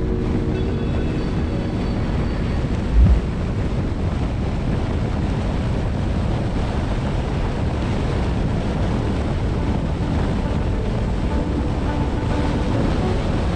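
Steady road and wind rush of a car driving, with a single short low thump about three seconds in, like a wheel going over a bump.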